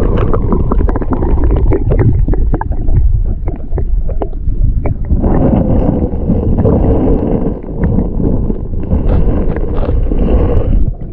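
Camera microphone plunged under river water: a loud underwater rumble and gurgle full of clicks and knocks from water moving against it. It starts and stops abruptly, as it goes in and comes back out.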